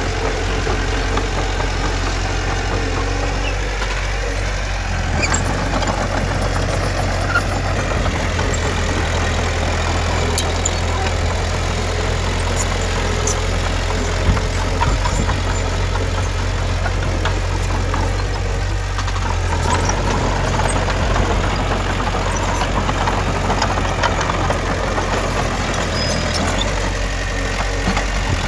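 Diesel engine of heavy earth-moving machinery running steadily under a continuous low drone, with a couple of brief sharp clanks.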